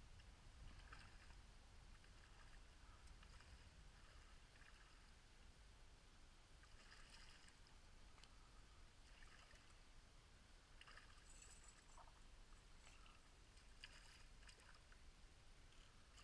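Near silence: a faint low wind rumble on the microphone with faint, intermittent water sounds from a shallow river.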